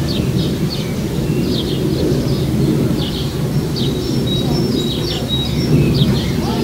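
Many short, high bird chirps, several a second, with a brief whistled note or two near the middle, over a steady low rumble of background noise that is the loudest sound.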